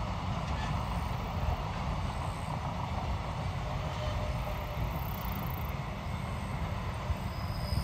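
Long container freight train rolling past: a steady rumble of wagon wheels on the rails.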